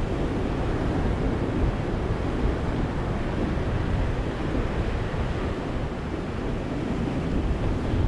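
Ocean surf: a steady wash of waves breaking on a beach.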